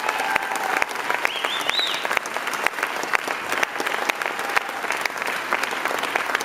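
Concert audience applauding, a dense patter of clapping throughout, with a brief high call from the crowd about a second in.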